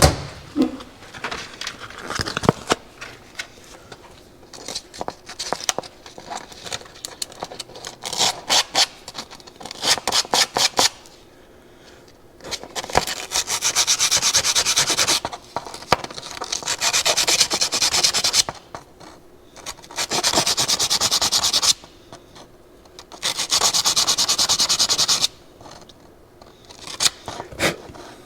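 Hand-sanding a small go-kart carburetor part with a piece of 180-grit abrasive paper. Scattered rubbing strokes at first, then from about halfway four bouts of fast back-and-forth strokes, each a couple of seconds long.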